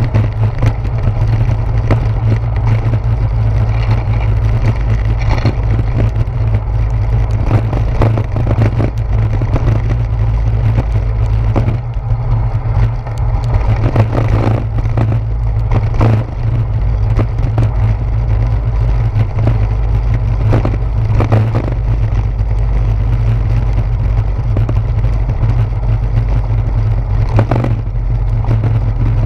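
Steady low rumble from a bicycle rolling over wet brick pavers, carried up the handlebars into a GoPro Hero 4 in its housing, with scattered knocks and rattles as the wheels hit bumps.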